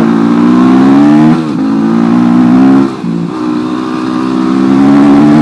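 Single-cylinder supermoto motorcycle engine running hard under throttle, its pitch climbing steadily. The revs drop sharply twice, about a second and a half and three seconds in, then climb again.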